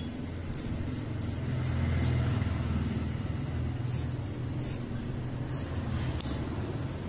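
A low background rumble that swells and then eases, with a few short scrapes of a small blade on enamelled copper magnet wire in the second half, stripping the insulation from a winding lead.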